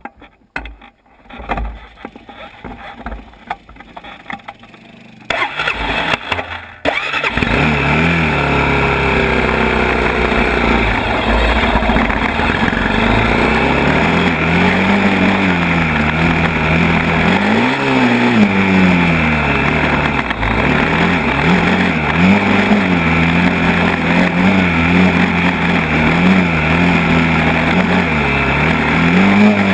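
ATV engine running under way, its pitch rising and falling as the throttle opens and closes. The first several seconds hold scattered knocks and rumble before the engine sound comes in fully, about seven seconds in.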